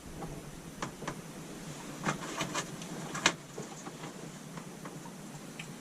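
Handling clicks and light plastic knocks from wiring being connected into WAGO 221 lever-nut connectors. About six sharp clicks fall in the first three and a half seconds, the loudest a little over three seconds in.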